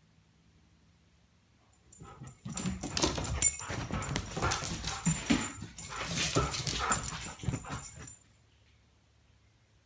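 Excited dog vocalising in greeting, with fur and paws rubbing and bumping against the phone close up; it starts about two seconds in and stops abruptly about six seconds later.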